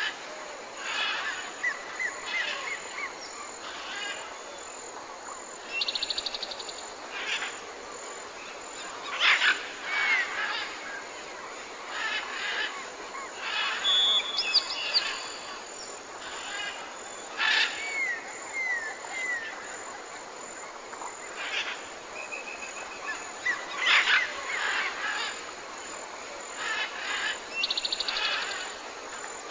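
Several different small birds calling and singing over one another: scattered chirps, a few quick buzzy trills and short slurred whistled notes.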